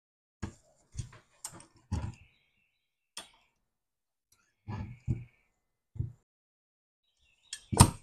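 Steel bracket parts of a tractor linked-pedal kit clinking and knocking against each other and the wooden workbench as they are fitted together by hand: about a dozen separate short knocks with pauses between, the loudest near the end.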